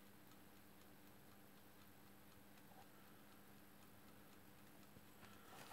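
Near silence with the faint, quick, even ticking of a mechanical watch, over a faint steady hum.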